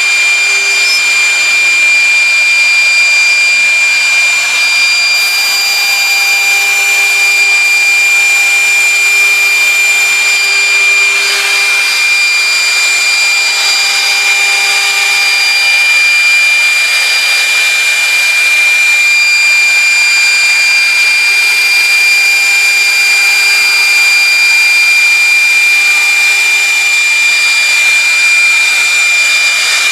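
A machine running steadily: a loud rushing noise with a constant high-pitched whine and a lower steady hum, unchanging throughout.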